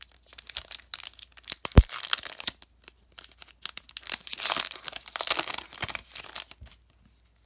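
A foil booster-pack wrapper of Pokémon cards being crinkled and torn open by hand: crackling and tearing, densest about four to six seconds in. A single low thump comes a little under two seconds in.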